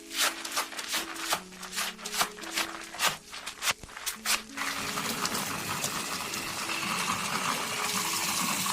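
Water starts running steadily about halfway through, a hissing spray over soft background music. Before it comes a quick, irregular series of sharp clicks or scratching strokes.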